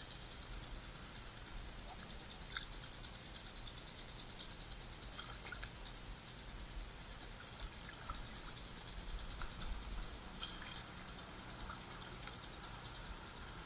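Faint outdoor ambience: a low rumble and a steady high hiss, with a few brief high ticks scattered through, slightly busier about ten seconds in.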